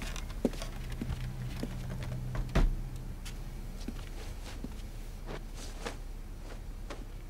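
Scattered soft clicks, roughly one every half to three-quarters of a second with a louder one about two and a half seconds in, over a low steady hum.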